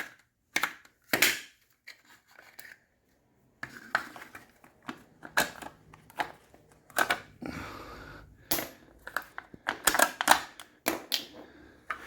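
Irregular metallic clicks and clinks of engine valve lifters and small parts being handled and set down, sparse at first and then coming thick and fast in the second half.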